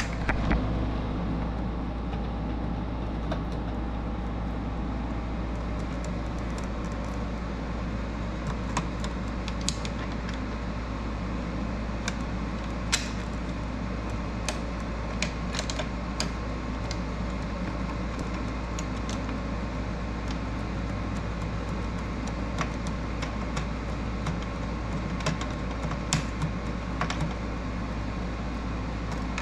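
Scattered small clicks and taps as hands fit a carbon fiber grille insert and start its screws into a car's plastic front grille, over a steady background hum.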